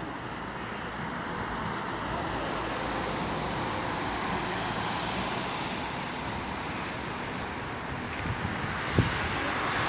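City street traffic noise: a steady rush of car tyres and engines that swells gently a few seconds in. One short knock comes near the end.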